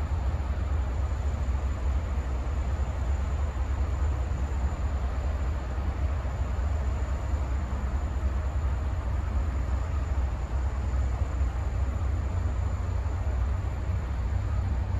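Steady low engine rumble at idle, even throughout, with a faint steady high-pitched tone over it.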